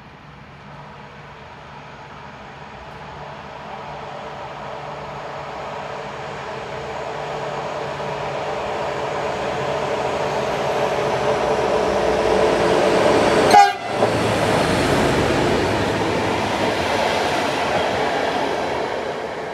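PKP Intercity SM42 diesel locomotive approaching and running through at speed with a train of passenger coaches. The engine grows steadily louder as it nears, and a short sharp crack comes at the loudest point a little past the middle. After that come the rush and wheel rumble of the coaches going by.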